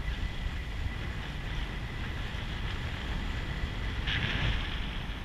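Wind noise on the microphone over a steady low rumble from a riverboat under way. A faint steady high whine sounds in the first two seconds, and a brief louder hiss comes about four seconds in.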